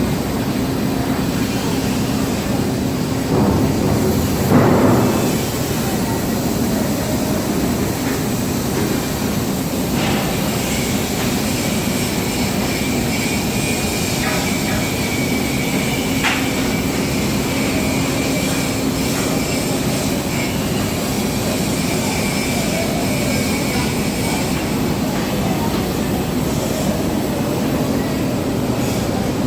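Steady, loud industrial noise with a low hum, swelling briefly about four seconds in and joined by a faint high whine for a stretch in the middle.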